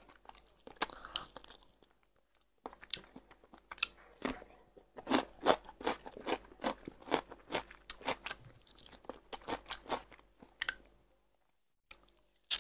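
A person chewing and biting crunchy food close to the microphone: a quick run of sharp, crisp crunches, busiest in the middle, with short pauses about two seconds in and near the end.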